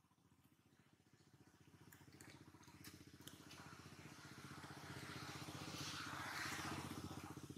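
Faint engine of a passing motor vehicle: a steady low drone that grows louder over several seconds, peaks near the end and begins to fade.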